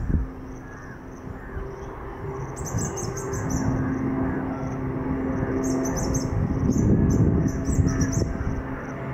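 Birds chirping in short high-pitched bursts, again and again, over a low steady hum that grows louder toward the middle and eases near the end.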